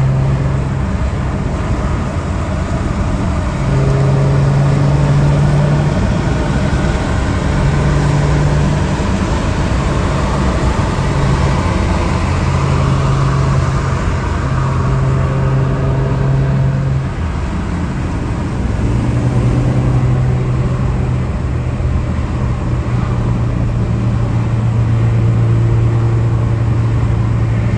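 Car engine and road noise heard from inside a moving car's cabin. The low engine note holds steady, then shifts between a lower and a higher pitch several times as engine speed changes.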